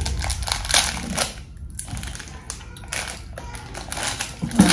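Plastic sweet wrapper crinkling and tearing as it is bitten and pulled open by hand: a run of irregular crackles with a short pause about a second and a half in.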